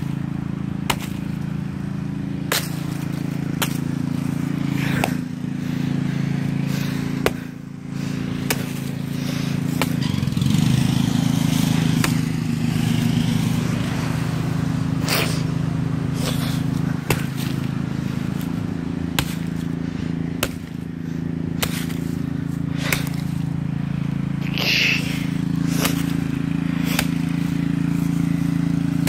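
A small engine runs steadily, with scattered sharp knocks and clicks over it.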